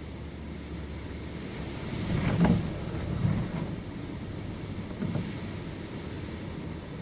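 Storm wind heard from inside a house: a steady low rumble that swells about two seconds in to a sharp, loud peak, eases, swells again briefly, with a short knock about five seconds in.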